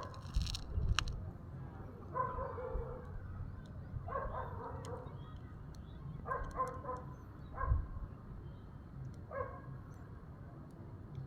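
A dog barking in short bouts every two seconds or so, over a steady low rumble.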